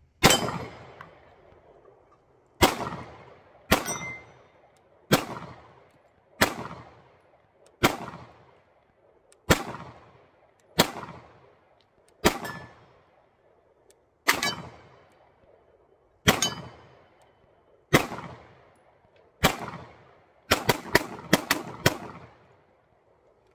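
Sig Sauer P320 9mm pistol being fired: about thirteen single shots at an even pace, roughly one every one and a half seconds. Near the end comes a quick string of about six shots. Each shot trails off in a long echo.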